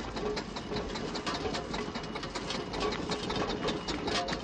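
Steamroller engine chugging, a rhythmic mechanical clatter of about five or six knocks a second over a steady hum, heard as film sound played back in a hall.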